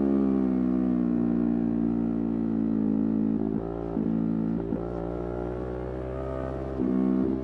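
Yamaha R3's parallel-twin engine running while riding, its note easing down in pitch, with brief breaks about three and a half, four and a half and seven seconds in, then louder again near the end.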